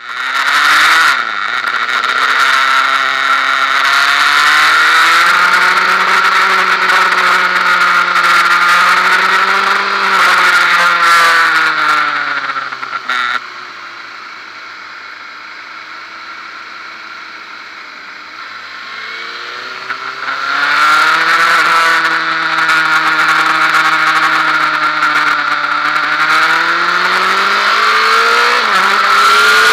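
Honda Fireblade inline-four sport bike engine heard onboard on a race track, revs climbing hard with quick upshifts that briefly drop the pitch. For several seconds around the middle the engine note falls lower and quieter as the throttle is eased, then it picks up and climbs again, with wind rush over the microphone throughout.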